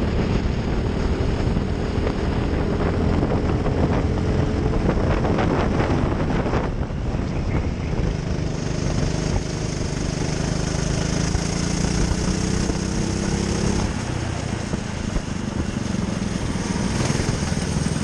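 Racing kart engine heard from the kart itself, running under throttle with its pitch climbing slowly. The pitch drops off sharply about seven seconds in, then climbs again.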